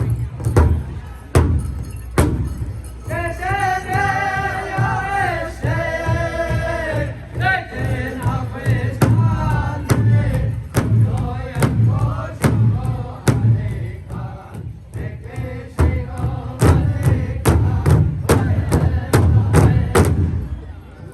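Powwow drum group: several singers chanting together over a large shared bass drum struck in steady unison beats.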